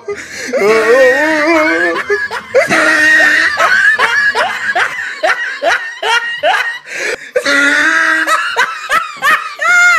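A person laughing hard and high-pitched: a long run of short, rapid, evenly repeated bursts in the middle, then longer drawn-out laughs near the end.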